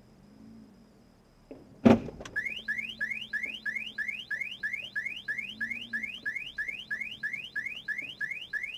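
A single loud thump about two seconds in as two cars bump at low speed. Half a second later a car alarm starts, a rising whoop repeating about three times a second.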